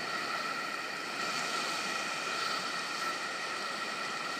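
Steady outdoor background hiss with a faint, even high hum running through it, and no distinct event.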